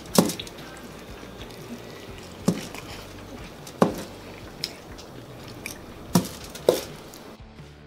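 Close-up eating sounds: sharp, wet smacks and squishes, about five of them, as a giant burrito's filling is picked apart by hand and chewed.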